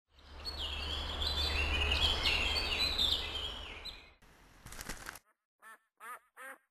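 Small birds chirping and singing over a steady outdoor background with a low hum, which stops about four seconds in. After a short burst of noise, a duck starts quacking: three short quacks near the end.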